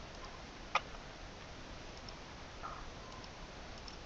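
A single sharp computer mouse click about three-quarters of a second in, over faint steady room hiss.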